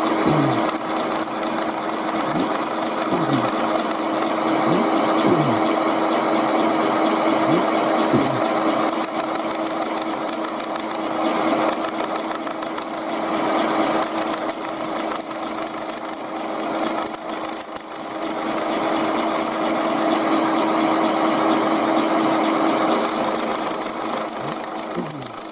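Milling machine running with its cutter milling through the thin tinplate lid of a tin can: a steady motor hum under a harsh, continuous cutting rasp with a fast fine chatter. The can is clamped only lightly to the machine table.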